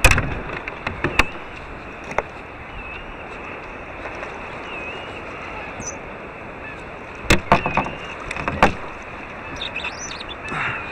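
Water and wind noise around a fishing kayak, with a few sharp knocks and clicks from the boat and gear: a cluster at the start and another about seven to nine seconds in.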